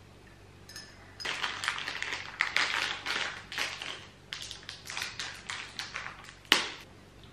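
Plastic snack wrapper crinkling and rustling irregularly as it is pulled open by hand, with one sharp snap near the end.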